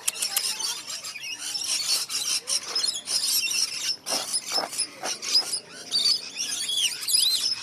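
A mixed flock of aviary birds chirping and chattering together, many short high calls overlapping, with a few louder, harsher squawks about four and five seconds in.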